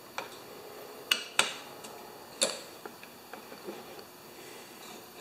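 A handful of sharp metallic clicks and clinks, irregularly spaced and loudest in the first two and a half seconds, from the choke lever and linkage on a Kohler mower engine's carburetor being worked by hand after it was refitted.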